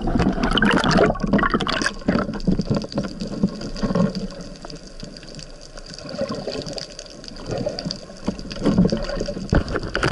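Water sloshing and bubbling against an underwater camera housing, with many small clicks and knocks, louder in the first two seconds and again near the end. A faint steady high tone runs under it.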